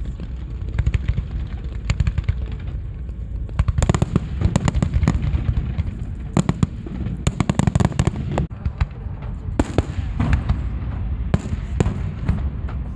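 Fireworks display: rapid crackling bangs and pops over a continuous low rumble of shell bursts, thickening about four seconds in into dense rattling volleys.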